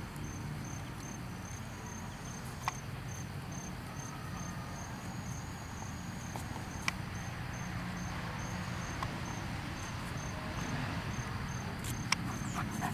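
A cricket chirping in a steady, even series of high pulses, with a few faint sharp clicks.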